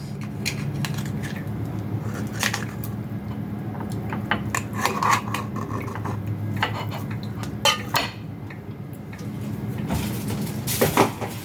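Metal cutlery clinking and scraping against dishware and a tin, in scattered knocks and scrapes over a steady low hum.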